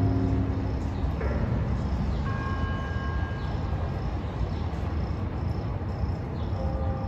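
Outdoor city ambience: a steady low rumble of distant traffic, with a few faint high tones about two seconds in.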